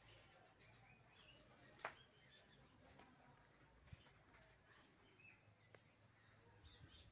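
Near silence of garden ambience with faint, scattered bird chirps, short rising and falling calls. A single sharp click about two seconds in stands out as the loudest sound, with a smaller one near four seconds.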